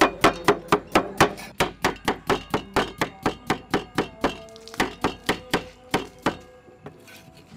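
Cleaver slicing a cucumber on a round wooden chopping board: quick, even knocks of the blade on the wood, about four or five a second, which stop near the end.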